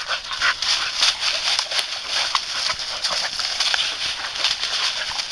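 Dry fallen leaves rustling and crackling under two dogs, a bull terrier and a fox terrier, as they scuffle and scramble through the leaf litter: a dense, uneven run of quick crunches.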